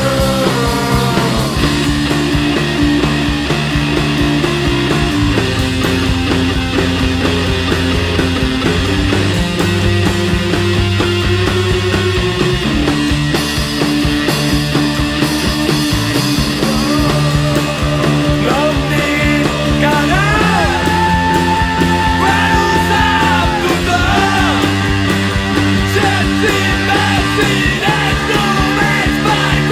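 Grunge punk rock song by a full band, loud and steady, with the low chords changing every few seconds. In the second half a higher melody line comes in, bending in pitch and holding notes.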